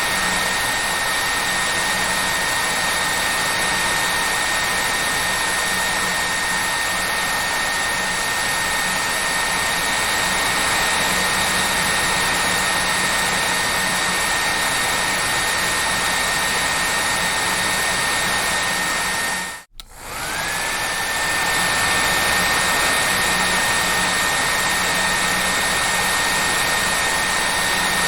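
Hair dryer running steadily: an even rush of air with a high motor whine. About twenty seconds in the sound cuts out for a moment, then the whine rises back to pitch and the steady rush carries on.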